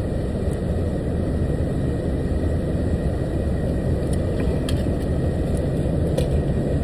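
Steady low rumble of an idling truck engine, with a few faint light clicks about four and a half seconds in and again near six seconds.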